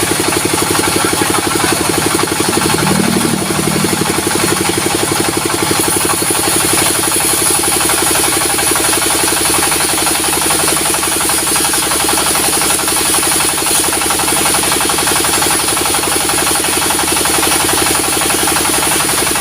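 Diesel engine powering a sawmill, running steadily with a fast, even pulse.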